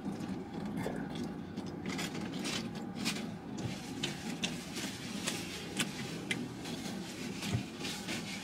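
Biting into and chewing a crunchy-breaded chicken sandwich, with many small crackles, then a paper napkin rustling as hands are wiped. A steady low hum runs underneath.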